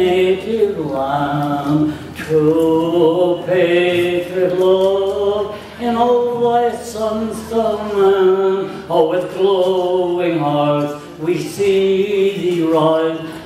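An elderly man singing solo into a microphone, holding long notes in phrases broken by short breaths.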